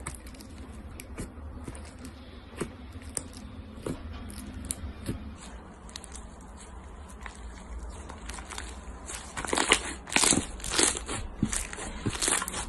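Thick white textured slime being squeezed, stretched and pressed by hand, giving off small scattered crackles and pops that build into a dense run of louder crunchy crackling near the end.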